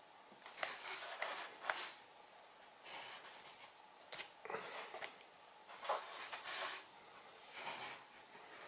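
Rustling and small clicks of hands handling wires and plastic plug connectors, in five or so short bursts with a few sharp clicks.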